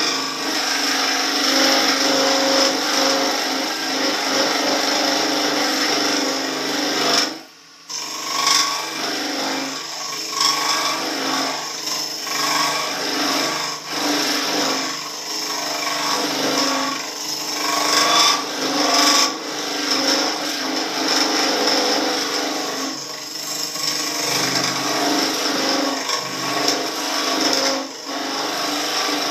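Turning tool cutting the inside of a spinning maple crotch bowl on a wood lathe: a steady scraping, shaving noise over the lathe's running hum. The cut breaks off briefly about seven seconds in, then goes on in uneven passes.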